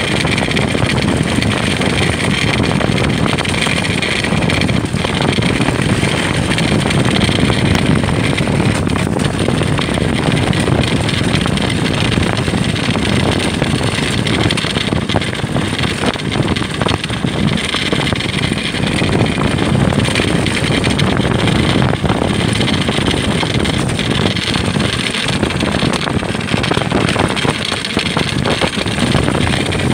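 Loud, steady rush of wind buffeting the microphone, mixed with the rumble of the ice sailer's runners on the ice at speed.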